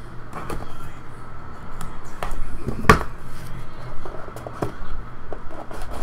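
Scattered clicks and taps of a sealed trading-card hobby box being unsealed and its lid worked open by hand, with one sharper knock about three seconds in.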